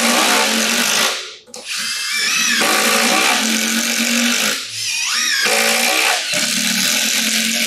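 Two cordless impact drivers, a HART and a RYOBI, hammering screws down into wood together, their impact mechanisms rattling over the motor whine. The sound breaks briefly about a second and a half in, then runs on again.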